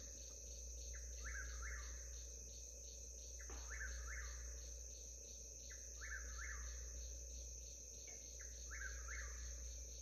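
A whip-poor-will calling its repeated three-note whip-poor-will song, four times at an even pace of about one call every two and a half seconds. Insects keep up a steady pulsing chirr underneath.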